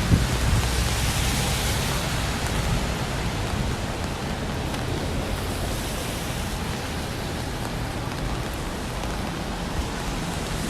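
Steady rain with wind, an even hiss over a low rumble, with a brief knock right at the start.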